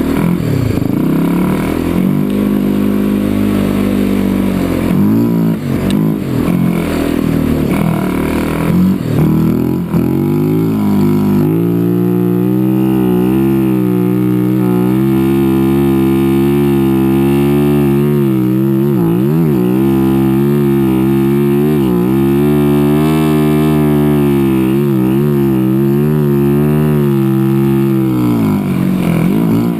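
A small off-road vehicle's engine being run hard up a climb. Its revs waver for the first ten seconds or so, then hold high and steady under load for most of the rest, and drop away near the end.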